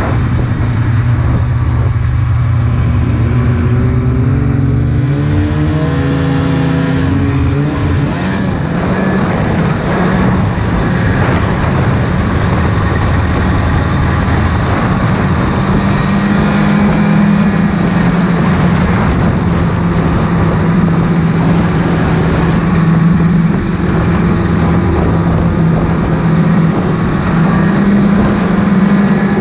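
Snowmobile engine speeding up, its pitch climbing for several seconds near the start, then running steadily under way.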